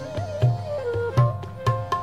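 Background instrumental music: regular low drum strokes, some bending up in pitch, under a melody that slides between notes.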